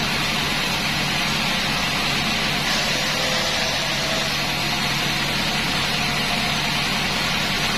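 Band sawmill running steadily: a constant motor hum under an even hiss.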